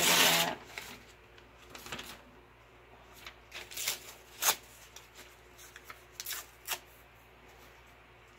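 Paper and card being handled on a tabletop: a loud rustle of paper at the start, then scattered light rustles and taps.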